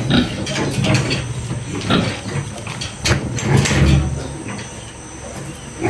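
Pigs grunting in a pen, mixed with scattered knocks and clatter.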